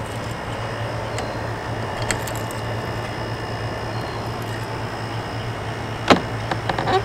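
Keys jingling on a key ring at a shed door's T-handle lock, then a sharp metallic click about six seconds in as the handle is turned to unlatch the door, followed by a few lighter clicks. A steady low hum runs underneath.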